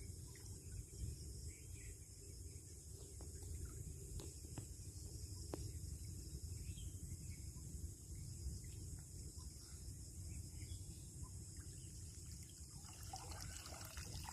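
Faint outdoor ambience: a steady high hiss of insects over a low rumble, with a few faint ticks.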